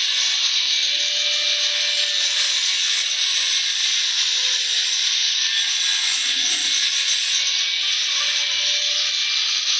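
Handheld angle grinder grinding metal, its disc held steadily against the part. It makes a continuous, high-pitched grinding hiss.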